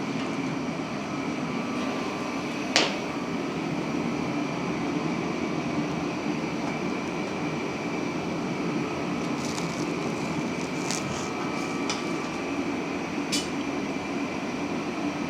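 Steady mechanical hum and rush from a running homemade gas forge and the quench tank's recirculating pump, with one sharp click about three seconds in and a few faint ticks later.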